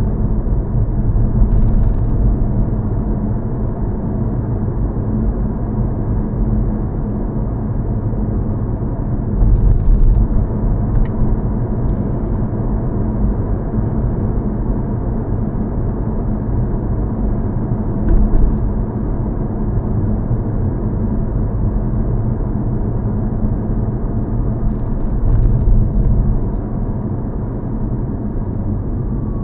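Car driving on an asphalt road: a steady low rumble of engine and tyres, with a few short knocks.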